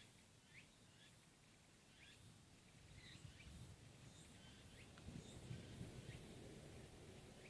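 Faint outdoor quiet with short, high chirps of small birds repeating through it, and a low rumble that swells in the middle.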